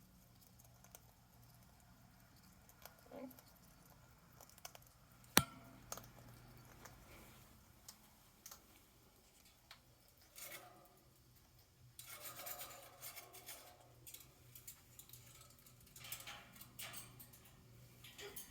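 A parrot nibbling at a food pellet held in its claw: faint scattered clicks of the beak with scratchy rasps, and one sharp click about five seconds in.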